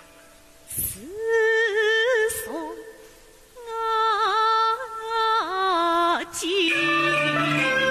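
A solo female Yue opera voice sings two phrases of held, wavering notes with sliding pitch, with no accompaniment and a short pause between them. Near the end the instrumental accompaniment comes back in.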